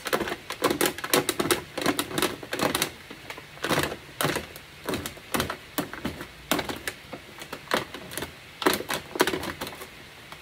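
A pointed metal punch pressed by hand through thin aluminum cake-pan sheet, making quick, irregular sharp clicks in uneven runs as each hole pops through along the traced star.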